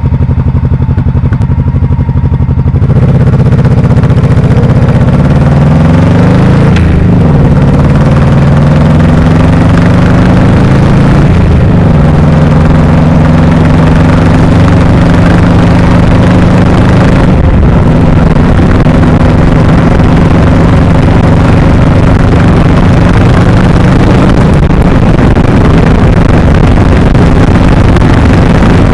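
1998 Honda Shadow VT1100T's V-twin engine and exhaust pulling away, picked up close to the rear tire. The engine gets louder about three seconds in and rises in pitch, dips briefly several times as if changing gear, then holds a steady cruise.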